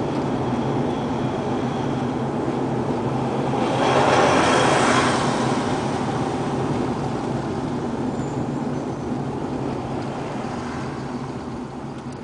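Car interior driving noise: the engine's low hum with tyre and road rumble. About four seconds in a louder rushing swell rises for a second or two, and the noise dies down near the end.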